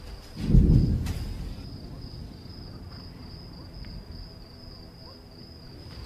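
Low boom of an explosion about half a second in, dying away over about a second, over the steady high chirring of crickets.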